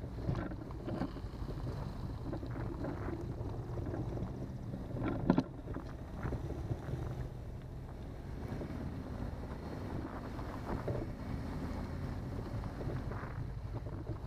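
Wind buffeting the microphone of a hood-mounted camera over the low rumble of a car driving slowly. There is a short, loud thump about five seconds in.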